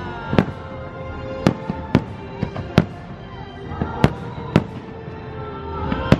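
Fireworks show: about seven sharp bangs at irregular intervals, over a musical soundtrack of sustained tones.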